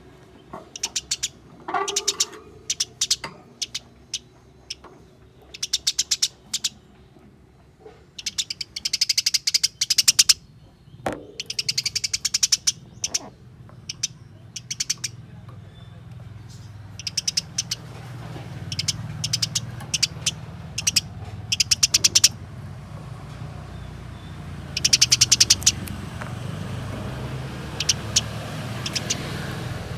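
Eurasian tree sparrows chattering in repeated short bursts of fast, harsh chirps: the excited calls of sparrows fighting. A low rumble builds in the background from about halfway through.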